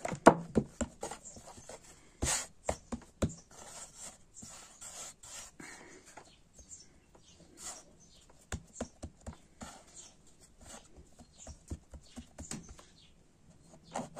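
Hands patting, pressing and kneading a ball of stiff dough on a floured wooden board: irregular soft slaps and taps, the loudest a moment after the start and again about two seconds in.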